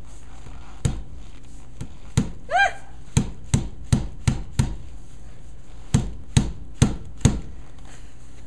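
A cardboard tube of refrigerated crescent dough is knocked sharply against a countertop to burst its seam, a dozen or so knocks in quick runs with a short pause in the middle. The tube does not pop open.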